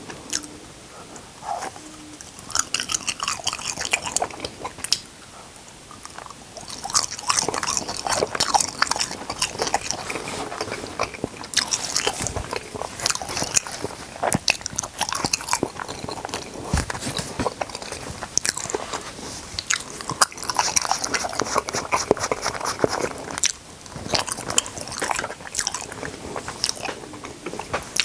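Close-miked eating: food being bitten and chewed, a dense, irregular run of sharp crackles and smacks.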